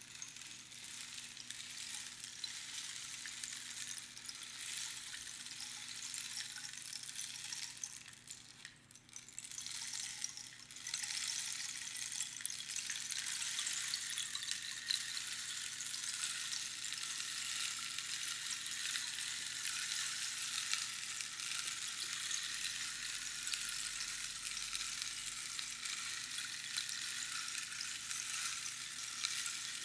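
Rainstick: small pebbles or beans running down past the pins inside the hollow cactus tube, making a continuous, dense pattering like falling rain. The cascade dies away about eight seconds in and starts again, fuller, near eleven seconds, as when the stick is turned over.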